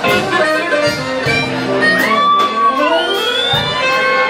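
Instrumental music playing, its melody notes sliding up and down in pitch.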